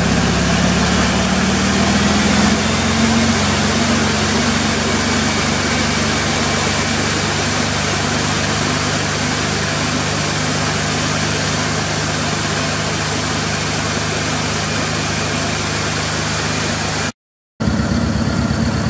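Volkswagen Sedán (Beetle) air-cooled flat-four engine revving up from about 1,400 rpm and held steady near 3,000 rpm. After a short dropout near the end it is back at an idle of about 1,000 rpm.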